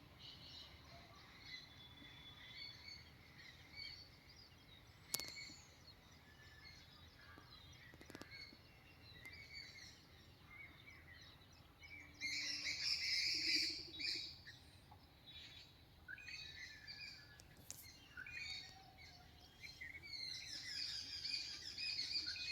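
Morning birdsong: many small birds chirping and twittering, with louder bursts of chirping about halfway through and again near the end. A single sharp click comes about five seconds in.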